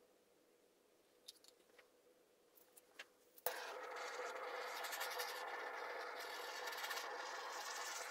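Handheld gas torch lit with a sharp click about three and a half seconds in, then burning with a steady hiss as it is passed over wet acrylic pour paint to pop air bubbles. Light clicks of handling before it.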